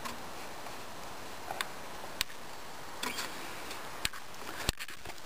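Steady hiss with about half a dozen sharp clicks scattered through it, from a small camera being handled while it pans.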